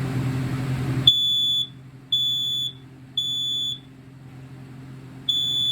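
First Alert SA304 ionization smoke alarm sounding its test alarm: high-pitched half-second beeps in the three-beep temporal pattern, three beeps, a pause, then the next round starting near the end. A steady hiss cuts off suddenly about a second in, just as the first beep starts.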